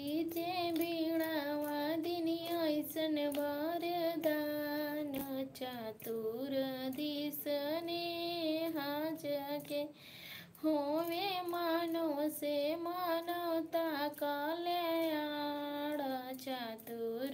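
A woman singing a song unaccompanied, in long held notes that waver in pitch, with a brief pause about ten seconds in.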